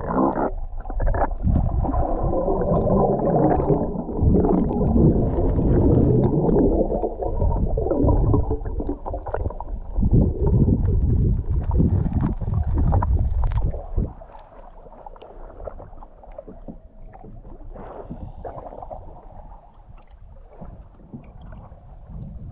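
Muffled underwater sound of bubbles and churning water, dense with pops and crackles, as snorkelling divers swim beside the net. About two-thirds of the way through it drops suddenly to a much quieter, even wash of sea and wind.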